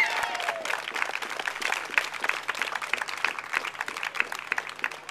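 A small group of people applauding, the clapping thinning out and dying away.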